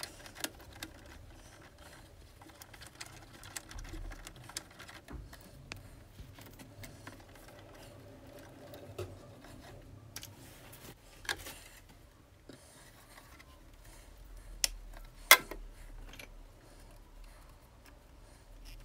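Scattered small clicks and taps of hands and hand tools working wires into a consumer unit, with a sharper click about fifteen seconds in.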